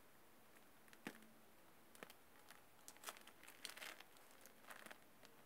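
Mostly near silence, with a few faint crinkles and soft clicks from handling the container as whipped coffee foam is squeezed onto milk in a glass jar. The crinkles cluster about three to four seconds in.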